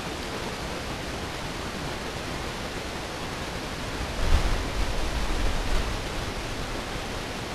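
A deep, distant low-frequency rumble swells up about four seconds in, lasts about two seconds and fades, over the steady hiss of the recorder's own noise, amplified in editing. The source of the rumble is unknown; it does not seem to be an explosion or an engine.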